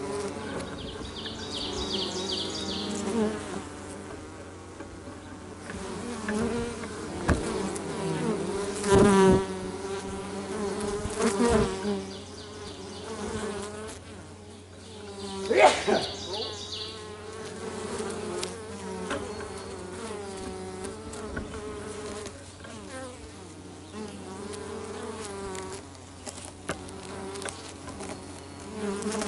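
Feral honey bees buzzing at the entrance of their nest in a pine tree: a steady hum of many wings, with single bees flying close past and swelling louder with a sweep in pitch about nine seconds in and again about sixteen seconds in.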